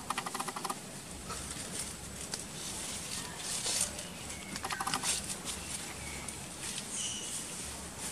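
Baby monkey scratching and rustling through dry leaves and soil on the forest floor. Twice, once at the start and again about five seconds in, there is a short rapid clicking trill.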